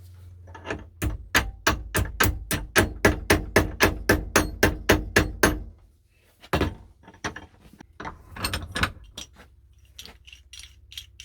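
Hammer blows driving a roll pin into a vintage pipe wrench: about sixteen quick, even metallic taps, then a pause and one harder blow, followed by lighter clinks. The pin stands in for a bolt whose hole could not be threaded deep enough.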